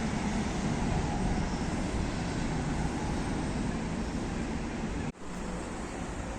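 Steady rumble of a running vehicle or engine with a low hum; it cuts out for an instant about five seconds in, then carries on.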